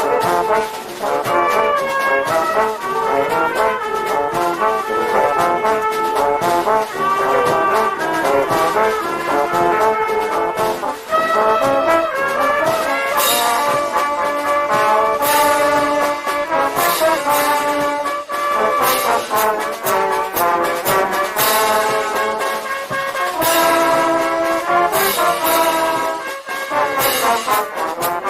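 A town wind band playing a dobrado, a Brazilian military-style march: trombones and trumpets carry the tune and harmony over steady percussion strokes.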